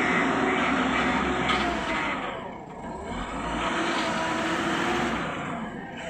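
JCB backhoe loader's diesel engine revving under load as it carries a full front bucket of soil. It eases off about two and a half seconds in, revs up again, then eases off near the end.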